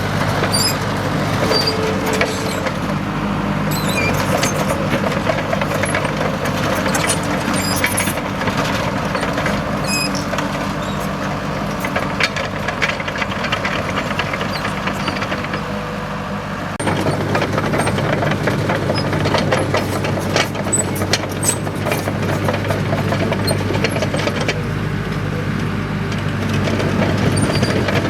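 Komatsu D37EX crawler bulldozer at work: its diesel engine runs steadily under a stream of rattling clicks and small squeaks from the machine and its steel tracks. About 17 seconds in, the engine grows louder and rougher.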